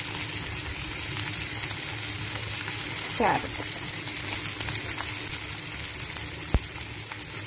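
Chopped onions, green chillies and potato pieces sizzling in hot oil in a pan, with a steady crackling hiss. A single sharp knock sounds near the end.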